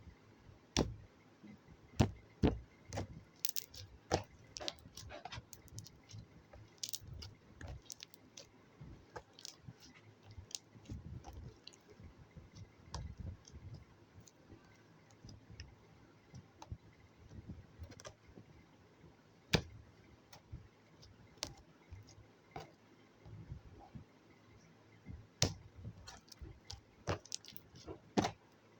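Soft glossy slime being pressed and stretched by hand, making irregular sticky clicks and squishes, some sharp and loud, at an uneven pace.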